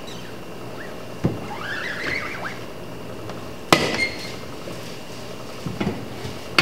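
A screen-printing squeegee dragged across the silk-screen mesh, pushing plastisol through it: a thump and then a squeaky scrape about a second in. After that comes a sharp metallic clack with a brief ring as the aluminium-handled squeegee is set down on the screen frame, and a few lighter knocks near the end as the screen is lifted.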